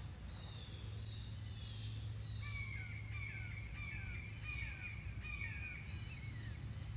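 Birds calling nearby, a run of short repeated calls about one every three-quarters of a second, busiest from about two seconds in.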